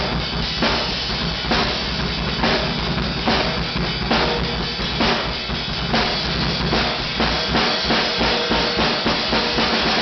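Acoustic drum kit played freely: a steady cymbal wash with snare and bass drum hits, accented about once a second at first, then quicker, more even strokes in the second half.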